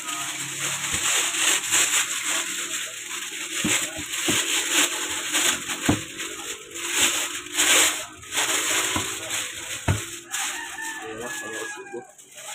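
Thin plastic bag crinkling and rustling as it is pulled off an audio mixer, with several dull knocks as the mixer bumps the table.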